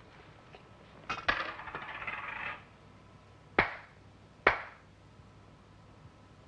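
Two sharp hand claps about a second apart: a ritual prayer clap before a sake bottle that is being blessed. Earlier, about a second in, come a couple of soft knocks and a brief rustle.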